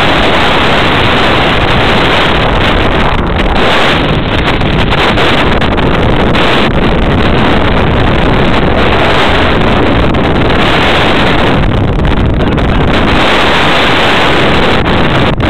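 Strong wind buffeting the microphone: loud, continuous rumbling roar with gusts that swell and ease.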